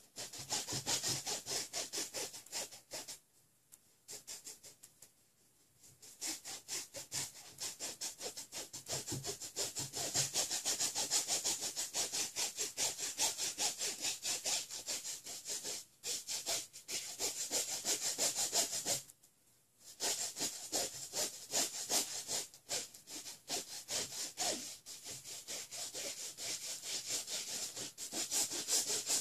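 Paintbrush scrubbing oil paint onto a stretched canvas in rapid back-and-forth strokes, a rhythmic rasping scrape. It pauses for a few seconds early on and briefly about two-thirds through.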